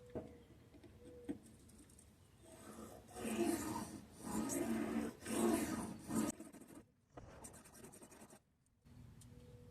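Sharpening stone on an Anystone fixed-angle guided sharpener drawn along a Spyderco knife blade's edge in about four strokes, putting a micro bevel on the edge at about 19 degrees. A couple of light clicks come before the strokes.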